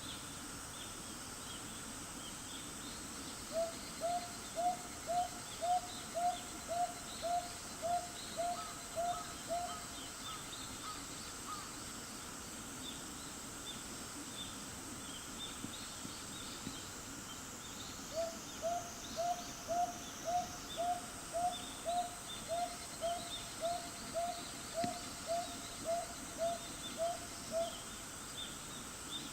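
Northern boobook owl hooting: two runs of short, low, evenly spaced hoots at about two a second, the first starting a few seconds in and the second a little past halfway. Steady high insect chirping runs behind them.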